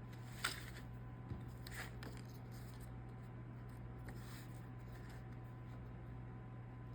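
A sharp click, then a few fainter clicks and a short scrape of a craft knife and plastic template worked against the leather at a book board's corner, over a steady low hum.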